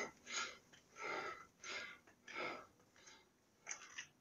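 A person's heavy breathing, faint, in short puffs about every two-thirds of a second: out of breath from climbing steep stone stairs in the heat. A few light clicks near the end.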